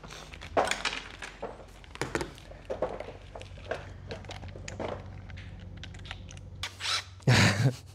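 Plastic parts bag crinkling and small clicks and knocks as hose fittings are handled, with a brief loud rushing sound about seven seconds in.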